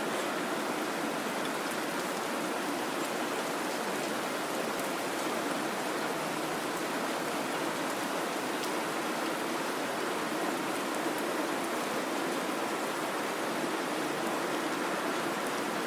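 Steady rain, an even hiss of falling water with faint scattered drop ticks, unchanging throughout.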